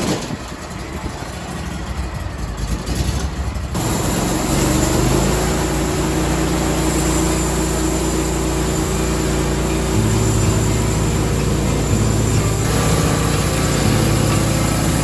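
Norwood portable sawmill running under power for the first cut: its engine is brought up to speed over the first few seconds, then runs steadily at high throttle with the bandsaw blade going, the engine note shifting slightly about ten seconds in.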